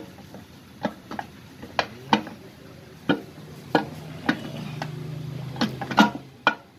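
Sharp metallic clicks and taps, about a dozen at irregular spacing, from the parts of a Toyota Etios Liva manual gearbox being worked by hand as its case half is seated over the gears and selector. A low steady hum comes in for a couple of seconds in the middle.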